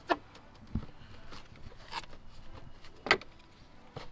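A handful of sharp plastic clicks and knocks as the stock plastic airbox housing is pried and pulled loose from its mounts; the loudest comes about three seconds in.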